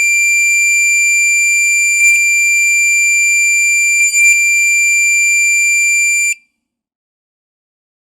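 Electronic buzzer sounding one steady, loud, high-pitched tone for about six seconds, with two brief wavers about two and four seconds in, then cutting off suddenly.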